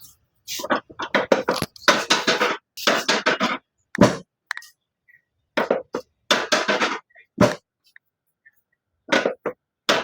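Hands slapping and thumping on a patient's body during chiropractic treatment: quick runs of strikes, with two heavier sharp thuds about four and seven and a half seconds in.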